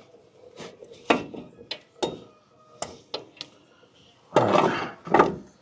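Metal hand tools and brake parts clinking and knocking during front brake disassembly: a string of short sharp clinks, then a longer, louder clatter about four and a half seconds in, and one more knock.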